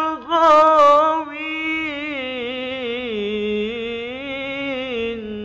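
A man chanting the Quran in tilawah style, drawing one syllable out into a single long melismatic note. Its pitch turns and wavers throughout, sinking lower partway through.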